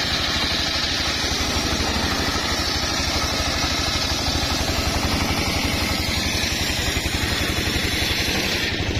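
A homemade circular sawmill ripping lengthwise through a mahogany log. The engine driving the blade runs steadily with a fast, even pulse, under the continuous hiss of the blade cutting the wood.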